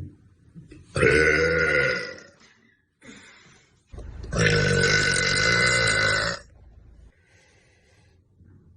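A young woman burping: two long, loud burps, the first about a second in and the second starting around four seconds in, each lasting about two seconds.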